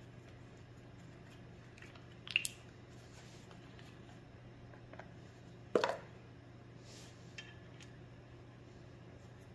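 Quiet handling noises as blue threadlocker is squeezed from a small plastic bottle onto a steel flywheel bolt's threads and the bolt is started by hand into the flywheel. There are a few sharp clicks and taps, the loudest about six seconds in, over a steady low hum.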